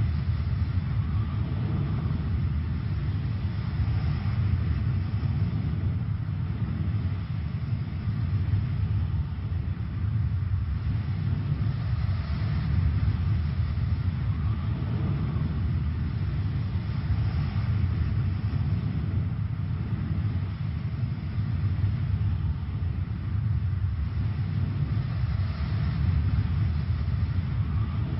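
A steady low rumble that holds even throughout, with no distinct strokes or changes in pitch.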